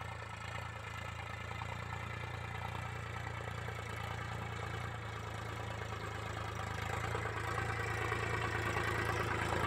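Mahindra 405 Yuvo Tech Plus tractor's 40 hp diesel engine running steadily under load, pulling a disc plough. It grows louder over the last few seconds as the tractor comes closer.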